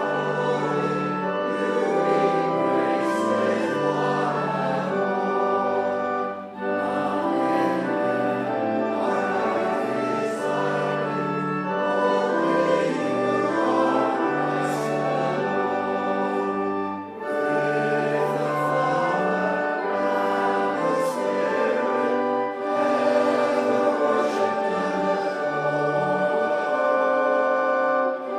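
A church congregation singing a hymn to organ accompaniment, with two brief breaks between lines about six and seventeen seconds in.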